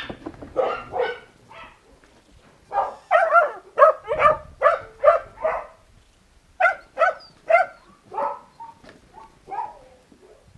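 Puppies yapping: strings of short, high barks in several bursts with brief pauses between them.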